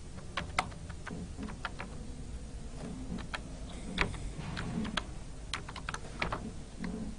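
Typing on a computer keyboard: single keystrokes clicking at an uneven pace, about two or three a second.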